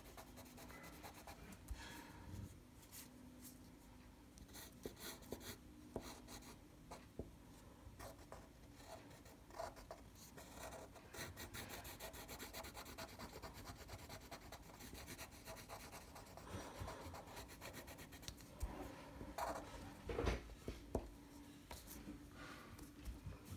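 Black marker scribbling on paper, with quick back-and-forth strokes filling in a solid black area. The rubbing scratches are faint, and a few louder strokes come a few seconds before the end.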